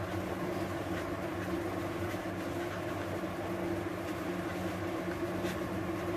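A steady low hum with a few faint soft ticks as hands mix crumbled khoya in a plastic plate.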